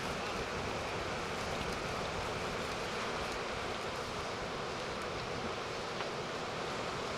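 Steady wash of breaking surf and wind, with some wind noise on the microphone.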